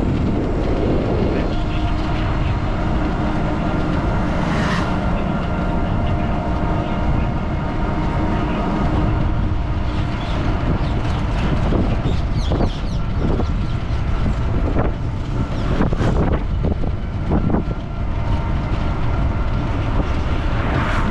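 Ride in a battery-powered e-rickshaw (toto): road and wind rumble with a steady whine, and a few short knocks or rattles in the second half.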